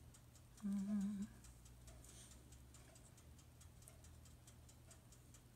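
Faint, steady mechanical ticking, about four ticks a second, with a brief hummed tone about a second in.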